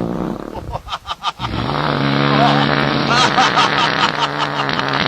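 A fart: a few short sputters, then one long, steady, low buzzing fart lasting about three and a half seconds.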